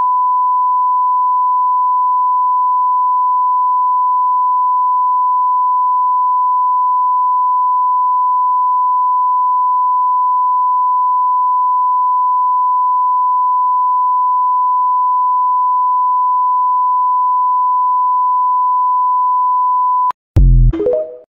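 Steady 1 kHz test tone, a pure sine reference tone for a TV test pattern, holding one unchanging pitch. It cuts off suddenly near the end, and after a short gap there is a brief loud low burst with a few falling tones.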